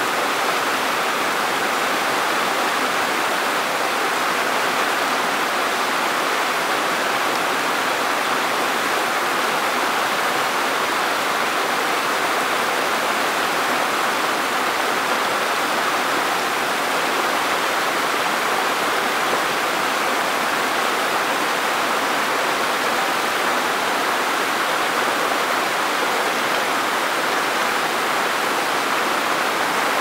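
Shallow rocky mountain stream pouring over small cascades and around boulders: a steady, unchanging rush of splashing water.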